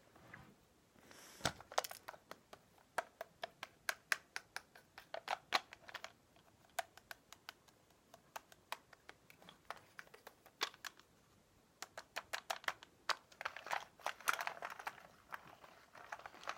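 ASMR trigger sounds: a run of light, irregular taps and clicks, several a second, with a stretch of crinkling near the end.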